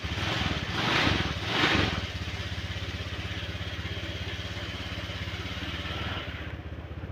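Honda Vario 125 scooter's single-cylinder four-stroke engine running. The throttle is blipped twice in quick succession about a second in, then the engine runs steadily and eases off slightly near the end. This happens during a throttle-position-sensor reset, with the idle speed not yet set.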